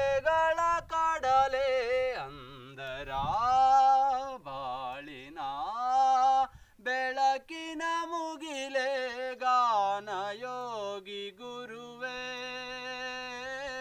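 A young man's unaccompanied voice singing long held notes that bend and waver in pitch, with no words picked out.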